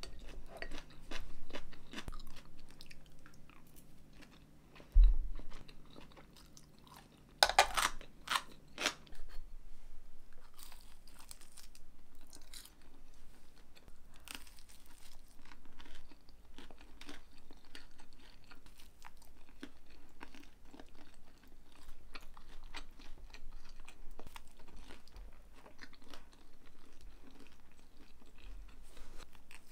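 A person biting and chewing a crisp pan-fried hotteok (Korean sweet pancake), with crunching and small clicks of chopsticks and dishes. There is a low thump about five seconds in, and a louder run of sharp clicks a few seconds later.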